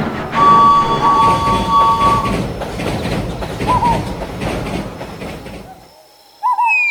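Train passing with a loud rumbling clatter of wheels, and two steady high tones sounding together for about two seconds near the start; the noise stops suddenly about six seconds in.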